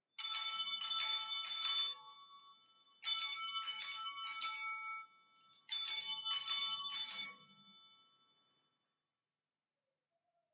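Altar bells (a cluster of Sanctus bells) rung three times, each ring a quick triple shake of several high, steady tones, the rings about three seconds apart and the last fading away. The ringing marks the elevation of the consecrated host at Mass.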